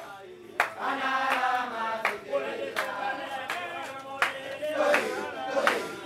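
Voices singing together in a chant-like melody, with hand claps keeping a steady beat of about four claps every three seconds.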